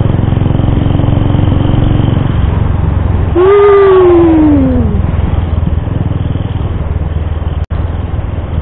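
Motorcycle engine running steadily at cruising speed with wind rush on the microphone. A little over three seconds in, the rider lets out one long wordless call that falls in pitch, and the sound cuts out for an instant near the end.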